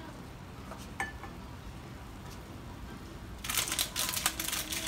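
A wooden spatula knocks once against the frying pan about a second in. Near the end comes about a second and a half of loud crinkling and crackling, the loudest sound here.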